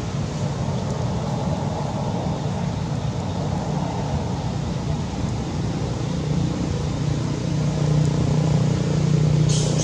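Steady low hum of a running motor vehicle engine, growing louder in the last couple of seconds. A brief scratchy rustle comes just before the end.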